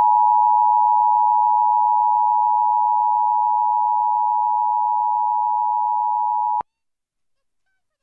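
Emergency Alert System attention signal: the steady two-tone alarm (853 and 960 Hz together) sounded as part of a Required Monthly Test, held unchanged and cutting off suddenly about six and a half seconds in. It marks that the alert's spoken message is about to follow.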